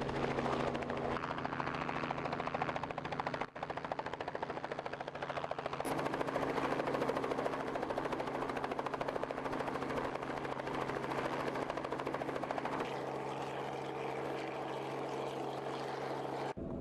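Helicopter hovering close by: the rotor blades beat rapidly and evenly over a steady engine and turbine drone. The sound breaks off briefly about three and a half seconds in.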